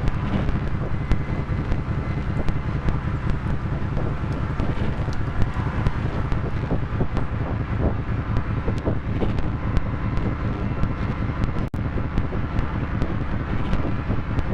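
Modular synthesizer drone-noise: a dense, heavy low rumbling drone with a haze of noise above it, peppered throughout by crackling clicks. It cuts out for an instant a little before the end.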